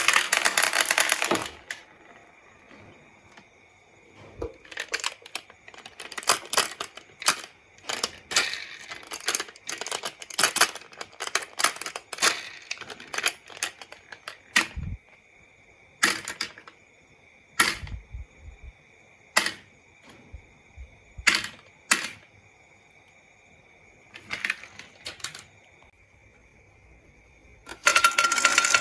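Marbles rattling along a marble run, then many sharp, irregular clicks and clacks as pieces knock on the track, and another loud rolling rattle starting near the end.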